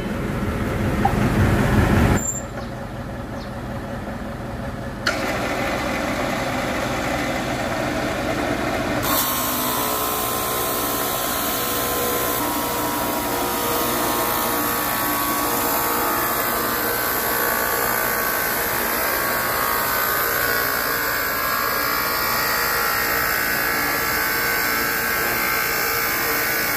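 Power saw blade cutting a 70 mm chrome-plated steel hydraulic cylinder rod. The machine noise shifts in the first few seconds, then from about nine seconds in becomes a steady, dense, hissing cutting noise.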